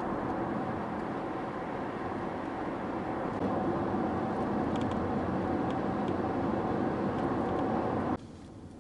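Steady road noise inside a moving car, mostly tyre and engine noise at cruising speed. It cuts off suddenly near the end.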